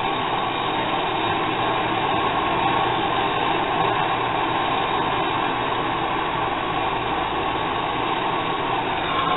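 Handheld gas torch flame hissing steadily while it heats a knife's guard and blade for soldering.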